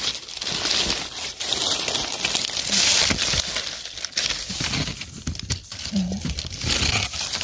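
Dry fallen leaves crackling and rustling as hands rake through the leaf litter to pick bolete mushrooms from the forest floor.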